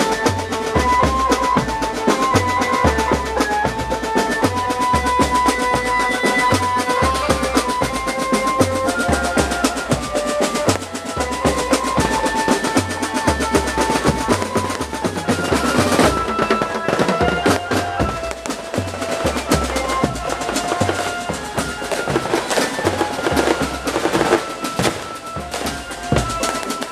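Loud dance music with drums and a heavy, steady bass beat under a sustained melody, played through a large outdoor horeg sound system with 15-inch subwoofers. A few sharp cracks cut through about sixteen seconds in.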